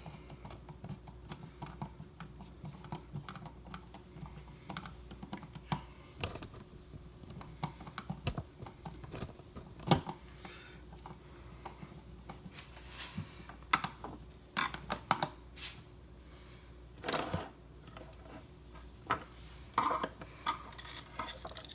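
Scattered clicks, taps and scrapes of a screwdriver and stiff wires being worked at an outlet's terminal screws as they are loosened, with a few longer scraping rustles among the clicks.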